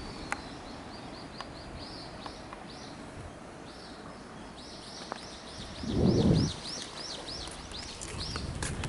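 A songbird singing a rapid run of short, high, repeated chirps, with a brief low rumble about six seconds in.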